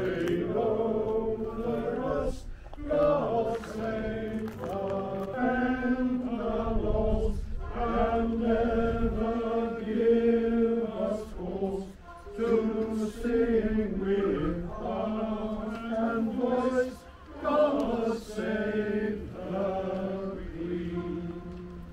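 A small congregation singing together: slow, held notes with short breaks between phrases, the tune settling lower and quieter near the end.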